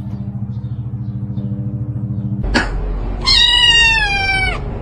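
A cat giving one long meow that slowly falls in pitch, a little over a second long, starting just past the middle. Before it there is a low, steady, rapidly pulsing hum, cut off by a sharp knock about two and a half seconds in.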